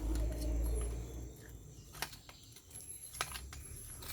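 Red-footed tortoise making a low grunting rumble for about the first second, then two sharp clicks a little over a second apart.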